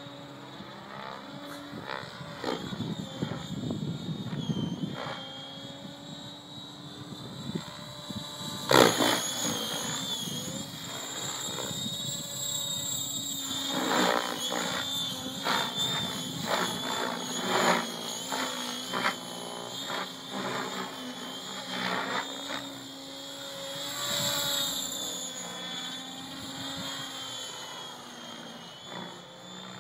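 Align T-Rex 700 electric RC helicopter flying overhead: a steady high whine from the motor and gears over rotor-blade noise, with the headspeed held at 1850 rpm by a VBar governor. Loud bursts of blade noise come with hard manoeuvres, sharpest about nine seconds in and in a rapid run between about fourteen and twenty-two seconds.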